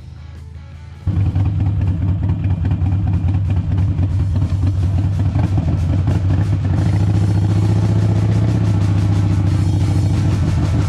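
Harley-Davidson Iron 883's 883 cc V-twin with an aftermarket Cobra exhaust, idling quietly, then about a second in running loud under way, climbing in pitch about seven seconds in.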